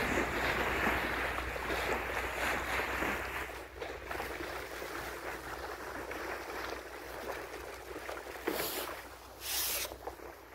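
Water rushing and splashing along the bow of a moving boat. It is loudest in the first few seconds and quieter after, with a steady low hum underneath. Two short hissing bursts come near the end.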